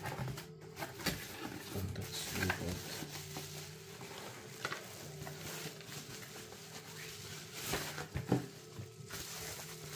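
Bubble wrap crinkling and rustling as wrapped parts are lifted out of a cardboard shipping box, with cardboard flaps handled and a few sharper crackles and taps.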